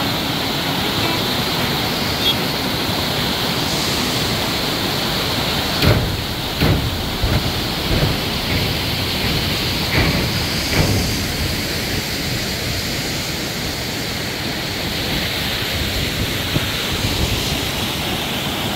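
Mountain waterfall rushing steadily as it cascades over rocks between snowbanks. A few short dull knocks sound in the middle.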